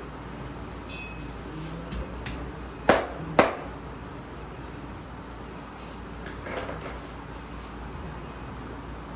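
Two sharp hand smacks about half a second apart, a few seconds in, after a couple of lighter taps. These are the slaps of a barber's head massage. A steady high-pitched whine runs underneath.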